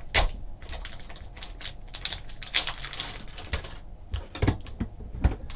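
Clear plastic bag crinkling and rustling as a graded card in a hard plastic slab is slid out of it, with scattered light clicks and a sharper crackle just after the start.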